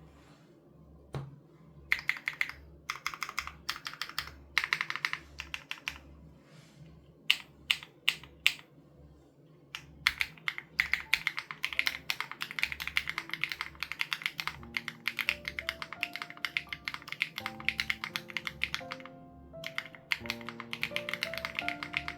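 Typing on an SPM AL87B mechanical keyboard with BSUN Raw switches and its sound-dampening foam removed. It comes in short bursts of key clicks, then a long, nearly unbroken run from about ten seconds in, over background music whose held notes come in around the middle.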